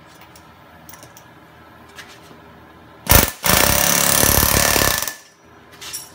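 Pneumatic air hammer with a valve guide driver hammering a new valve guide into an aluminum Subaru EJ25 SOHC cylinder head. About three seconds in there is a brief blip, then a loud stretch of rapid hammering lasting just under two seconds that stops abruptly.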